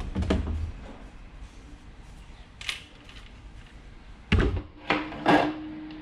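Plastic back cover of a flat-screen TV being pried loose and lifted off: a soft knock, a sharp click, then three loud knocks and clatter near the end as the panel comes away and is handled.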